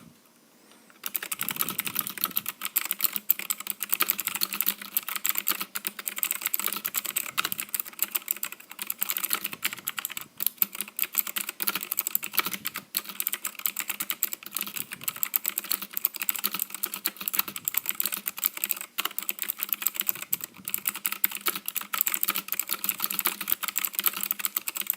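Fast, continuous typing on an Hcman budget mechanical keyboard, its clicky blue-type switches clicking key after key, starting about a second in.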